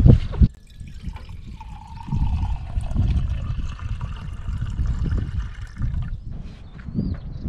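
Water running from a vehicle-mounted water tap into a small enamel coffee pot, filling it, with wind gusting on the microphone. A brief knock right at the start.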